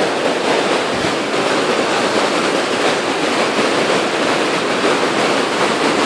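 A fast creek rushing over boulders in a steady, even whitewater roar.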